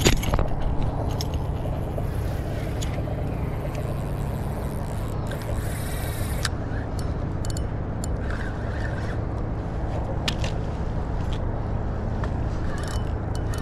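A steady low engine hum, with scattered light clicks.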